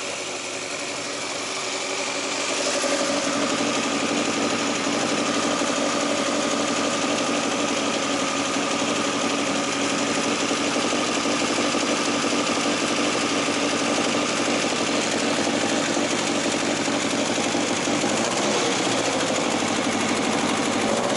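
Toyota 20-valve 4A-GE four-cylinder engine running on a test stand. It gets louder about two to three seconds in, then runs steadily, with its pitch shifting a little near the end.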